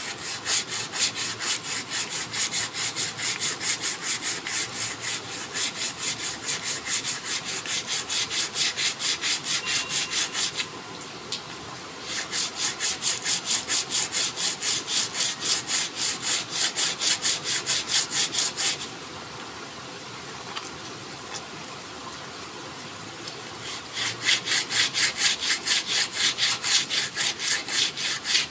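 Sandpaper worked by hand along a forest red gum didgeridoo, making rapid, even back-and-forth rasping strokes on the wood. The strokes pause briefly about eleven seconds in, then stop for about five seconds before starting again.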